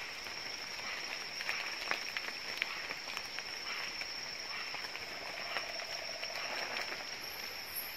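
Tropical forest ambience: insects keep up a steady, high-pitched drone over a softer chirring. Scattered short clicks and chirps sound through it, with a faint buzzing call about two-thirds of the way through.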